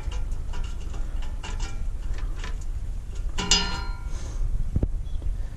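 Oxygen sensor being worked loose by hand from a header bung: light metallic clicks and scrapes as it turns in damaged, stripped threads. A short pitched sound comes about three and a half seconds in.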